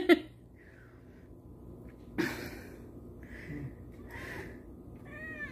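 A person eating: faint breathing and mouth sounds between bites of food, with one short, sharper sound about two seconds in.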